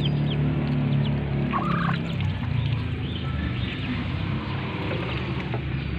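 Newly hatched ducklings peeping in many short, high, falling chirps, with one louder call about a second and a half in. A steady low hum runs underneath, strongest in the first couple of seconds.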